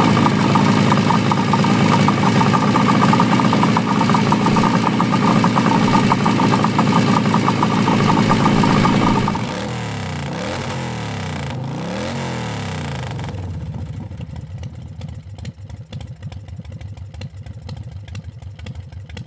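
Suzuki GT185's two-stroke twin engine running steadily. About nine seconds in it gets quieter, and the revs rise and fall a few times before it carries on at a lower level.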